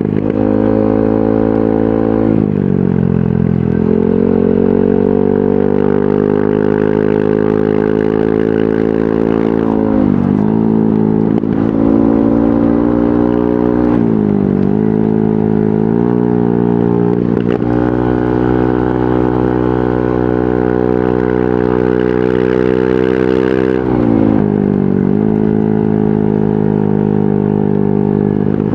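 Yamaha NMAX 155 scooter's single-cylinder engine running through an aftermarket VMAX Onyx muffler. The exhaust note holds a steady pitch, dips in engine speed about four times, and picks back up each time.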